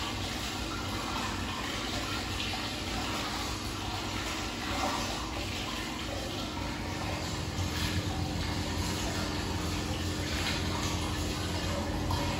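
Hot-spring water running steadily into a stone bath, a constant rushing, with light sloshing and splashing as a bather moves through the water.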